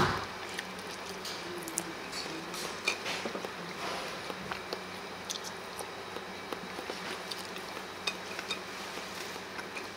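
Scattered light clinks and taps of dishes and cutlery over a steady low hum of room noise, with a louder knock right at the start.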